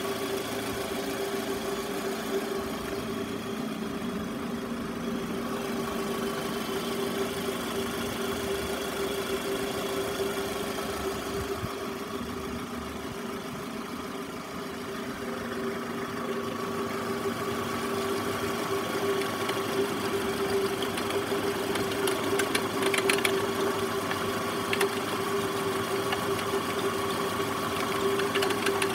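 Toyota Estima ACR50's 2.4-litre four-cylinder engine idling, with a steady, unchanging whine from the alternator: the abnormal alternator noise.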